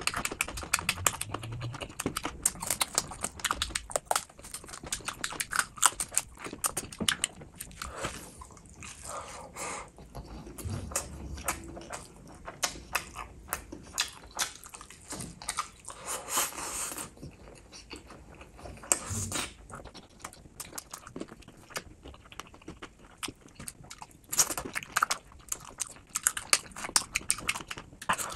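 Open-mouthed chewing and lip-smacking while eating chicken and rice in gravy by hand: a dense, irregular run of short wet clicks and smacks.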